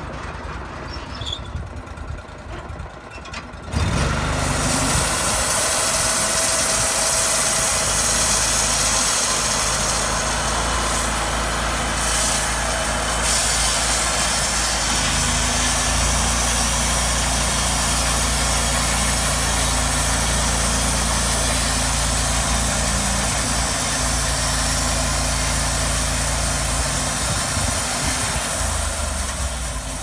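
Portable band sawmill's engine idling, then throttled up suddenly about four seconds in. It runs loud and steady as the band blade saws along a log, settling slightly lower near the end.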